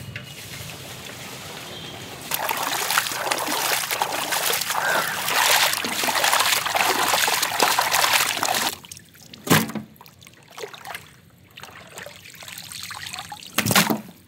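Water pouring and splashing into a large metal pot of raw mutton pieces as they are washed, overflowing the rim for several seconds. After that comes quieter sloshing as hands work the meat in the water, broken by two sharp knocks.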